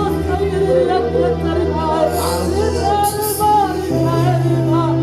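Gospel music with singing over a steady bass line.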